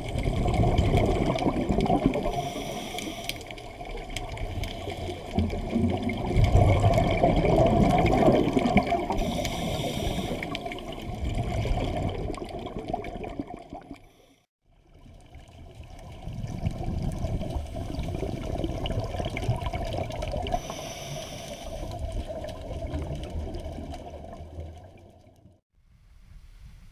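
Scuba diver's exhaled air bubbling out of the regulator underwater, a noisy rumble that swells and fades in surges a few seconds apart, one per breath. It breaks off briefly about halfway through.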